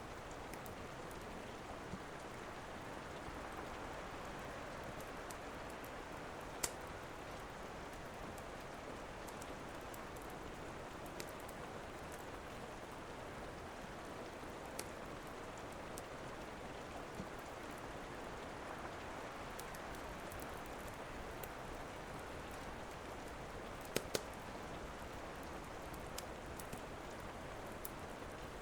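Steady rainfall with the sharp pops of a crackling wood fire now and then, two loud ones close together near the end.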